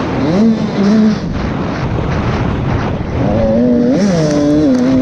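Husqvarna 85cc two-stroke motocross bike engine, heard from the rider's helmet, revving up and backing off as the rider accelerates and rolls off over the track. The pitch climbs sharply about half a second in, falls about a second in, then climbs and wavers again from about three seconds in, over a steady rush of wind on the microphone.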